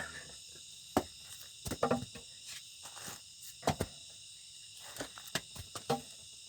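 Steady chorus of crickets and other insects, with scattered sharp knocks and scrapes from handling close by; the knocks are the loudest sounds.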